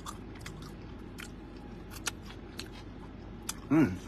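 A sauced chicken wing being pulled apart by hand and eaten, with scattered faint wet clicks and smacks. Near the end comes a short hummed "mmm" of enjoyment.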